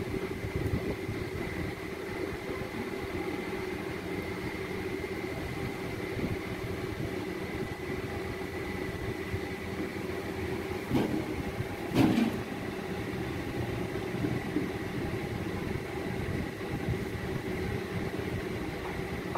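Steady mechanical hum with a constant thin high whine, and two short knocks about eleven and twelve seconds in.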